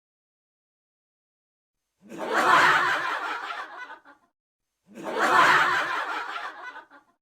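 A burst of laughter, about two seconds long, heard twice in an identical form with a short silence between the two, like the same laugh clip played again.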